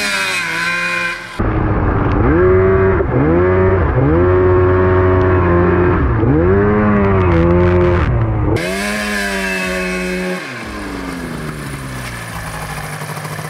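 Honda Odyssey ATV's two-stroke engine revving up and dropping back again and again under load as it drives, then falling to a steady, lower idle from about ten seconds in. The driver finds it boggy, blaming either the clutching or tires too big for it, or an engine worn from running without oil or water pump.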